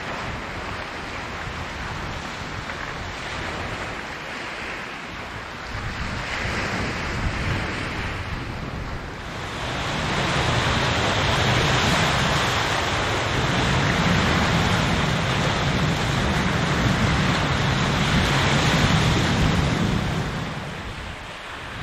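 Waves washing on the shore, mixed with wind buffeting the microphone. Both swell louder a little before halfway and ease off near the end.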